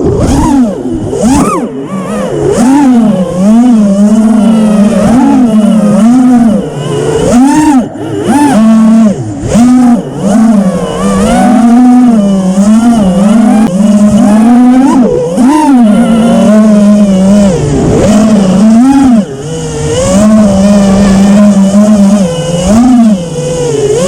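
Brushless motors of a 5-inch FPV freestyle quadcopter (T-Motor F40 III 2600 Kv with three-blade props) whining, the pitch swooping up and down constantly as the throttle is worked through tight turns, with stretches of steady hover buzz between.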